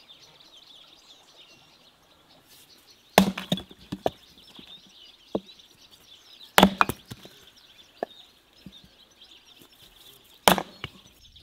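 An axe splitting firewood on a wooden chopping stump: three heavy chops about three and a half seconds apart, each followed by a few lighter knocks of wood. Birds chirp steadily in the background.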